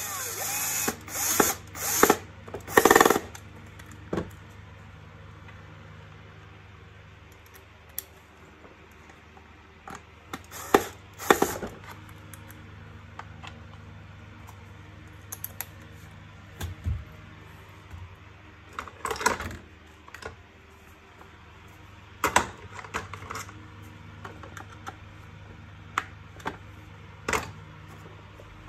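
Cordless drill-driver running in several short bursts as it drives screws in a vacuum cleaner's plastic housing. The loudest runs come in the first three seconds. Clicks and knocks of plastic parts being handled come between the runs.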